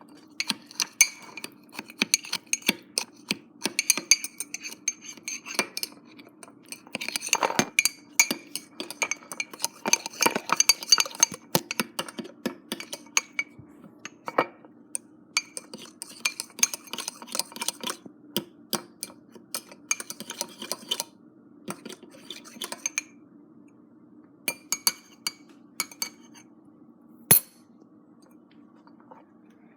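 A metal utensil clinking and scraping against a mug as Oreo cookies are crushed in it: rapid, irregular clinks that thin out after about 21 seconds, with one sharp clink near the end, over a steady low hum.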